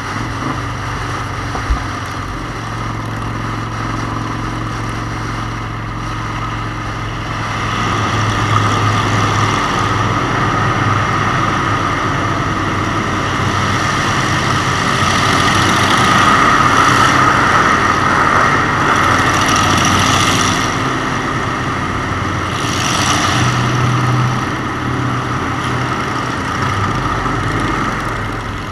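Motorcycle engine running under way with a steady rush of wind noise; the engine note and overall level rise about eight seconds in. Two brief swells of rushing noise come near the end.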